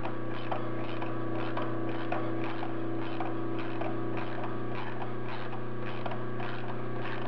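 Metal lathe running in its slowest gear, a steady hum with a regular tick two or three times a second, as a high-speed steel 3/4-28 tap held in a ratchet wrench cuts threads into 416 stainless steel.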